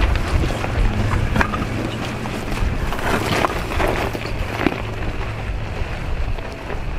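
Toyota 4Runner crawling slowly over loose rock, its engine running low and steady, with stones crunching and clicking under the tyres. Wind buffets the microphone.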